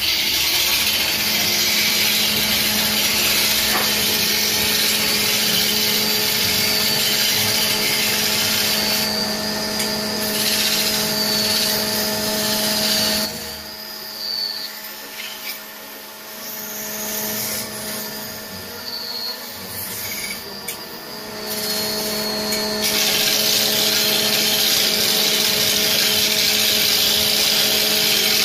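Electric wood lathe running with a steady motor hum while a hand turning tool cuts into a large spinning wooden blank, giving a continuous hiss and scrape from the wood. The sound drops quieter for several seconds in the middle, then returns to full strength.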